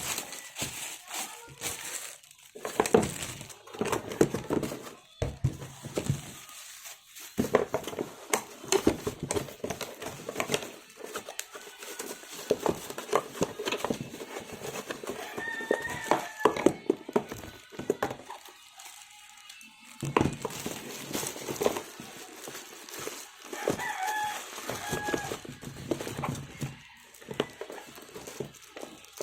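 Hands putting power tools and their accessories back into their packaging: irregular clicks, knocks and handling clatter with rustling. A few short pitched calls sound twice, around the middle and later on.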